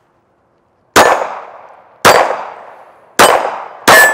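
Four shots from a Shadow Systems MR920 Elite 9mm pistol, the first three about a second apart and the last two closer together, each trailing off in a long echo. Hits on steel plate targets clang and ring.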